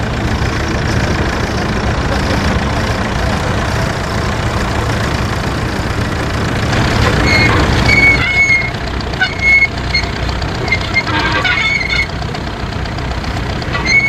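Vintage tractor engine running steadily as it pulls a mounted plough through the soil.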